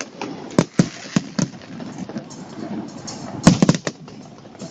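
Fireworks bursting in a series of sharp bangs: four spaced bangs in the first second and a half, then a quick cluster of bangs about three and a half seconds in.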